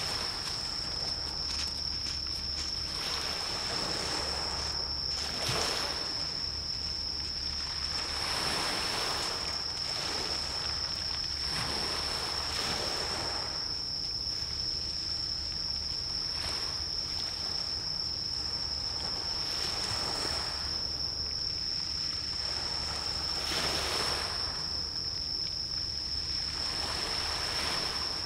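Small waves washing in, swelling and fading every few seconds, over a steady high-pitched insect trill, with a low rumble that comes and goes underneath.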